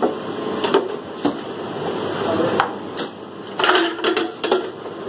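Ice cubes knocking and clattering into a plastic blender jar in a few separate clinks, with a quick run of them about three and a half to four and a half seconds in, over a steady background hum.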